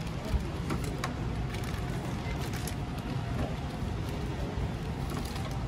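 Steady low background hum of a big-box store aisle, with a few light clicks as packaged gate hinges and latches are handled on the display hooks.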